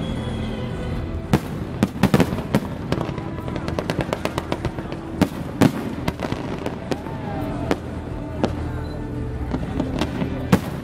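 An aerial fireworks display: shells bursting in many sharp bangs and crackles, in quick clusters, with music playing underneath.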